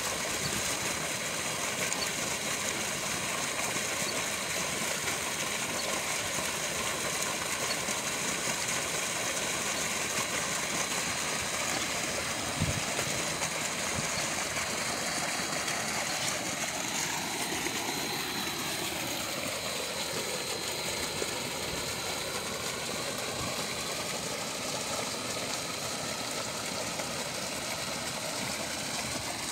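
Steady rush of shallow stream water flowing over stones.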